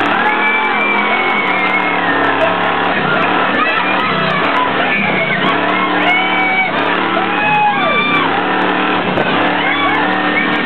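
Music with a steady beat and guitar, with shouting voices over it.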